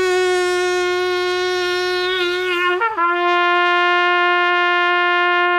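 pTrumpet (plastic trumpet) played with the lips buzzing into the mouthpiece: one long held note, a brief break a little before three seconds in, then the same note held again. It is the first open note made on the instrument, with no valves pressed.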